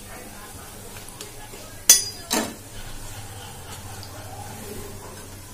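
Onion pakodi frying in hot oil with a steady low sizzle, while a steel slotted spoon scoops them out. About two seconds in the metal spoon clinks twice, the first sharp and ringing, the second duller.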